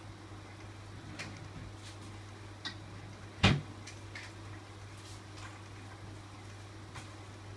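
Steady low electrical hum, with a few light clicks and one sharp, much louder knock about three and a half seconds in.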